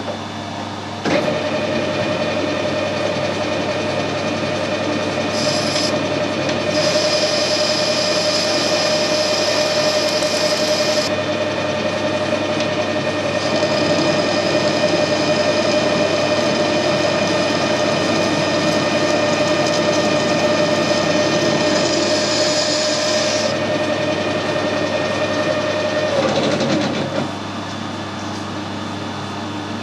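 Metal lathe turning a small stainless steel pin down to about 4 mm for threading: the lathe starts cutting about a second in, runs steadily with a higher cutting hiss coming and going in the middle, and stops a few seconds before the end.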